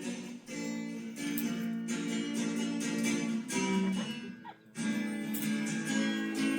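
Music with a strummed acoustic guitar, briefly dropping away about four and a half seconds in before the chords resume.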